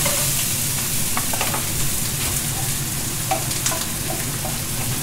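Onions, shallots and vegetables sizzling in oil in a frying pan, a steady hiss, with a few light taps of a knife on a wooden chopping board.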